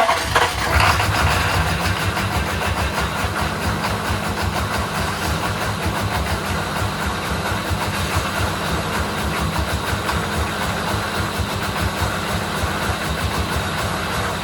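1997 K3500's 6.5 L V8 turbo diesel running at a rough, uneven idle, a bit louder for about the first two seconds before settling. The rough idle persists with good fuel pressure, new batteries, good grounds, a tested fuel solenoid and either of two Stanadyne 39405 modules, so its cause is still unfound.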